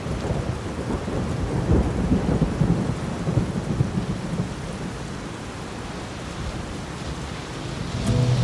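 Steady rain with a low thunder rumble that swells about two to three seconds in. Music starts near the end.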